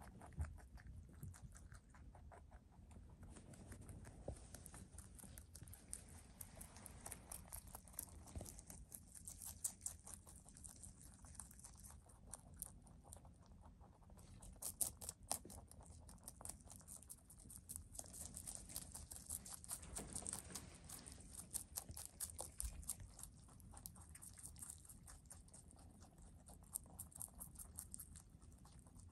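Domestic rabbits munching fresh leafy greens (lettuce, collard greens, parsley): a fast, continuous run of small crunching chews, with now and then the tear of a leaf.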